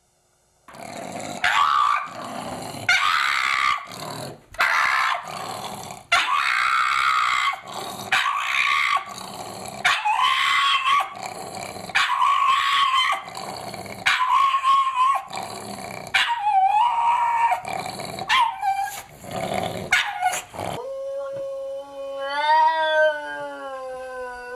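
A dog giving a long series of loud, rough, howl-like calls, about one every second and a half. Near the end a clearer, drawn-out howl takes over, its pitch rising and then falling.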